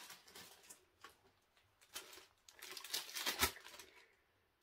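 Empty plastic gummy-bear bag crinkling and rustling as it is handled, in a few short spells, loudest about three seconds in.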